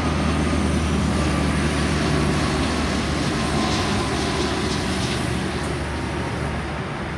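Twin-engine Airbus A330-300 jet airliner on final approach passing overhead: a loud, steady jet engine rumble with a faint whine that slowly falls in pitch, easing slightly near the end as the aircraft moves away.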